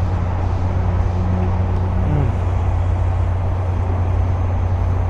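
Steady low rumble of motor vehicles, with a man's drawn-out closed-mouth 'mmm' hum over the first two seconds that falls away at its end.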